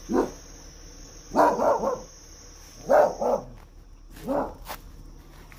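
A dog barking, about six barks in short groups of one or two, over a steady high insect trill that stops partway through.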